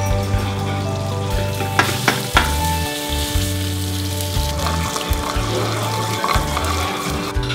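Potato wedges and a seared piece of meat sizzling in hot fat in frying pans, with soft background music throughout. There are a couple of sharp clicks about two seconds in.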